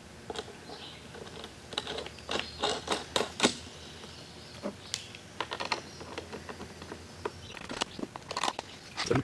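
Hand tools and small metal hardware being handled: irregular light clicks and knocks, busiest a couple of seconds in and again near the end.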